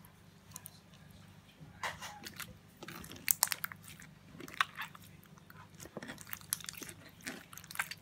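Clear slime squeezed and kneaded by hand, giving irregular wet crackles and pops, thickest about three seconds in.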